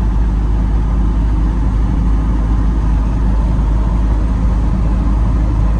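A vehicle driving along a road: a steady engine drone under a heavy low rumble of wind and road noise, with no change through the stretch.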